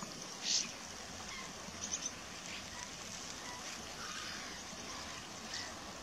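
Flock of common starlings bathing in shallow water: short bursts of splashing and bird chatter, a few in the six seconds, over a steady hiss.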